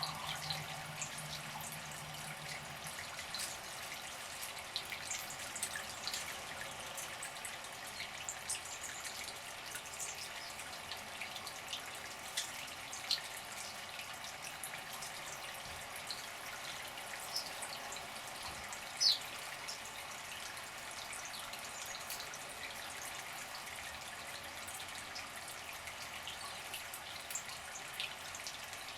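Water splashing and dripping in a bird bath as birds bathe: a steady watery hiss with many small, sharp splashes, one louder about two-thirds of the way through.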